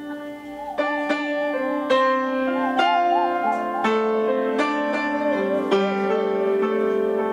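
Upright piano playing a slow, halting run of single notes and chords, struck about once or twice a second from about a second in. Over it a bowed string instrument holds long wavering notes with wide vibrato in a free, improvised duet.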